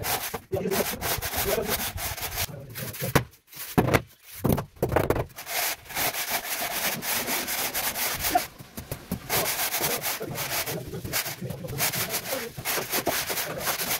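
A metal screed straightedge scraping over a sand-and-cement floor bed as it is drawn across to level it, a gritty rasping in repeated strokes with a short break a few seconds in.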